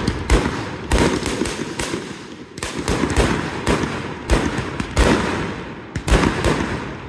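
Aerial fireworks shells bursting in quick succession: a steady run of sharp bangs, about two to three a second, each trailing off in an echo.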